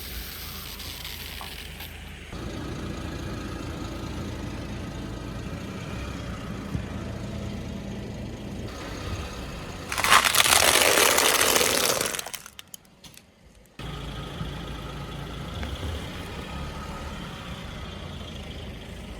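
Car engine idling, with a loud burst of crushing noise lasting about two seconds about ten seconds in as the tyre runs over an object. The engine sound then drops out briefly and comes back.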